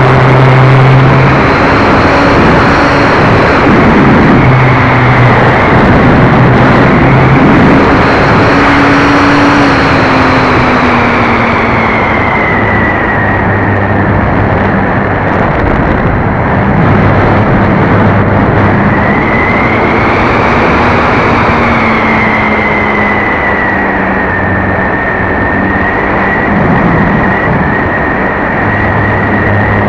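RC model plane's electric motor and propeller whining in flight, the pitch slowly rising and falling, under heavy wind rush on a keychain camera mounted on the tail.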